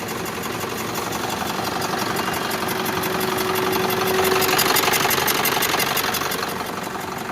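Ashok Leyland BS6 diesel engine running with an abnormal noise from the fan belt drive, a fast steady rattle over the engine note. A faint whine comes in a few seconds in, and the noise swells a little past the middle.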